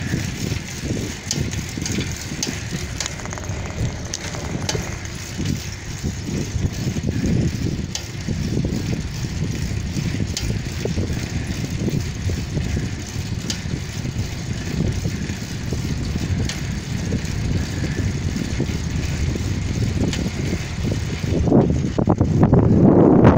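Wind buffeting the microphone and tyres rumbling on asphalt while riding a bicycle, with scattered light clicks and rattles. The rumble swells to its loudest near the end.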